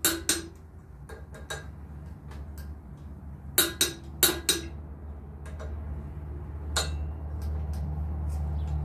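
Metal tool clinking against an engine's flywheel and its torque converter bolts: sharp clinks, mostly in pairs, near the start, around four seconds in and once near seven seconds. A steady low hum runs underneath and grows a little louder toward the end.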